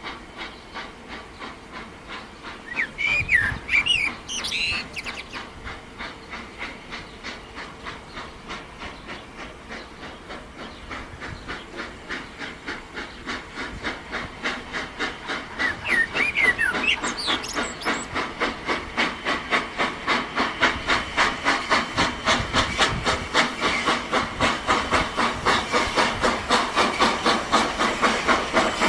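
Steam locomotive chuffing, its exhaust beats quickening and growing louder as it gathers speed. Two short, wavering high-pitched sounds come over it, once near the start and again about halfway through.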